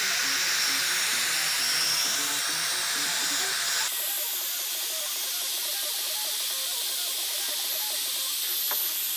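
Heat gun running, a steady hiss of blown air, used to shrink grill cloth tight. About four seconds in the sound changes abruptly, losing its lower part.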